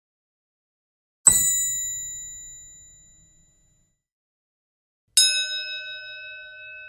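Two bright ding sound effects, about four seconds apart, each struck suddenly and ringing out as it fades over a couple of seconds: notification-bell chimes of a follow/subscribe animation.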